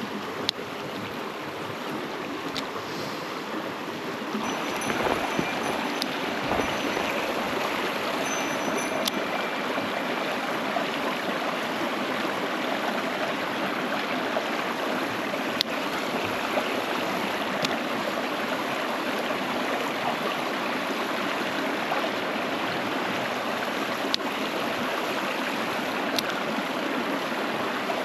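Mountain stream running over rocks, a steady rush of water that grows a little louder about four seconds in, with a few faint ticks here and there.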